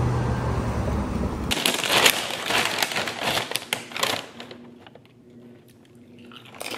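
Street noise for about a second and a half, then a paper chip bag rustling and crinkling as a hand digs into it for tortilla chips, dense at first and thinning to a few scattered crackles near the end.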